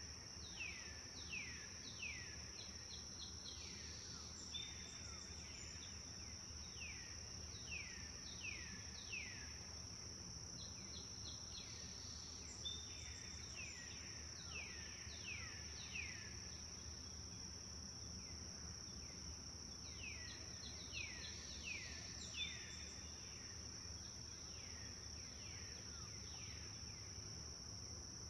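Wild birds calling in runs of quick falling whistled notes, a few short higher chirps among them, over a steady high-pitched insect drone.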